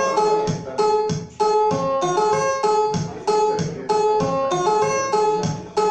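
Dance music: a short melody of sharp plucked notes repeating in a regular pattern over a steady beat.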